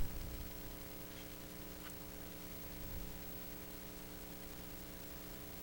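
Faint steady hum made of several even tones over a low hiss: background room tone, with a faint tick about two seconds in.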